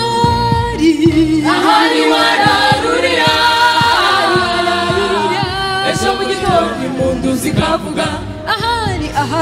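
Gospel choir singing, many voices together, with a steady beat under the voices.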